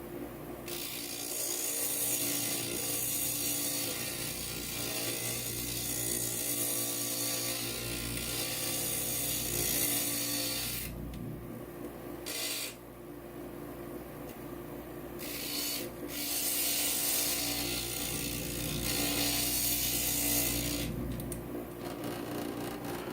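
Inland stained glass grinder running with a steady motor hum while a glass piece is pressed against its spinning diamond bit, giving a gritty grinding hiss. The grinding comes in spells: one long stretch, a break about eleven seconds in, then further spells that stop shortly before the end while the motor keeps running.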